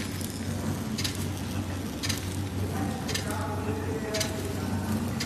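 250X horizontal flow-wrap pillow packing machine running, with a steady low hum and a sharp click about once a second as it cycles.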